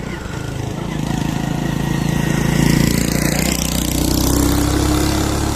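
Vehicle engine running close by, growing louder over the first couple of seconds and then holding steady, its pitch rising slightly toward the end.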